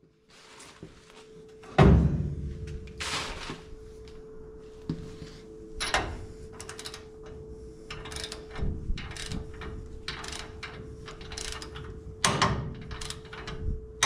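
Ratcheting torque wrench being worked on a ball joint castle nut on a 1968 Chevrolet C20's front spindle: repeated clicking ratchet strokes in short runs as the nut is torqued down. A loud knock comes about two seconds in.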